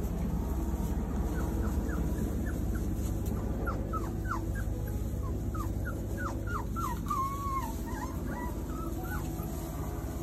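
Four-week-old English shepherd puppies whimpering: a run of short, high, falling squeaks, thickest from about four to seven seconds in, with a longer wavering whine near seven seconds.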